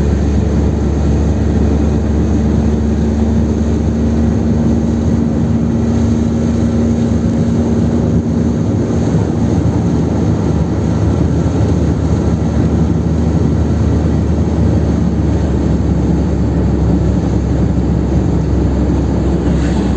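Car engine and tyre and wind noise heard from inside the cabin at highway speed, a steady low rumble, with a steady hum over the first half that fades out about halfway through.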